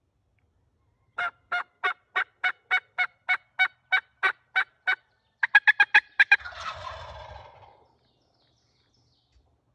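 Wild turkeys calling: a steady series of about thirteen yelps, about three a second, then a quicker run of louder, sharper notes, breaking into a rattling gobble from the young gobblers (jakes) near the end.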